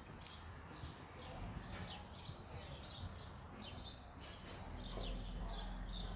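Small birds chirping, a rapid series of short, high, falling chirps repeating throughout. A low steady rumble joins in about three-quarters of the way through.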